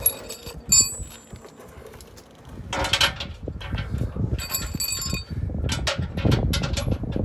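Bolts and hand tools clinking against a zinc-plated steel skid plate as it is bolted up, with short metallic rings at the start, just under a second in, and again about two-thirds through, then a quick run of clicks near the end. Wind rumbles low on the microphone.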